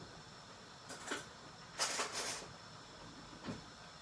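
Faint clatter of things being handled in a kitchen: a few short knocks and clinks, the loudest pair about two seconds in.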